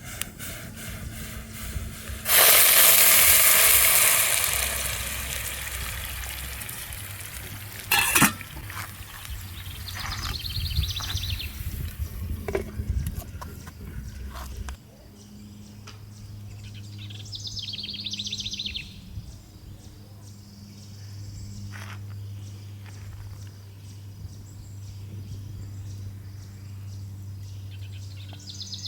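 Water pouring with a loud hiss that starts suddenly and fades over about four seconds, then a single sharp clink. Short high chirps come and go over a low steady hum.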